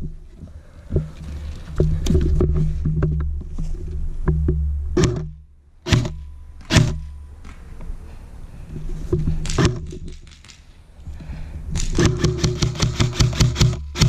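Airsoft rifle firing: a few scattered single shots, then a fast, even run of shots, about eight a second, starting about two seconds before the end. A steady low rumble of wind and handling noise lies underneath.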